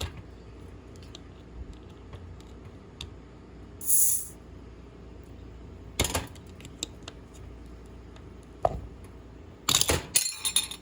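Clicks and knocks of hands working to open a bottle of mandarin Jarritos soda, with a short hiss about four seconds in and a quick run of clicks and clatter near the end.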